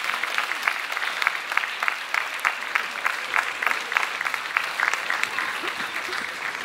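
Audience applause: many people clapping steadily together.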